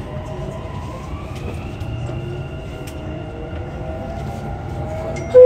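Dubai Metro train running, heard from inside the carriage: a steady low rumble with a faint whine that slides up and down in pitch. At the very end a loud chime tone suddenly starts.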